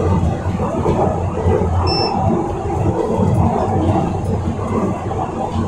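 Old-stock Glasgow Subway train running through the tunnel, heard from inside: a steady, loud rumble of wheels and motors with a low hum. A short high beep sounds once about two seconds in.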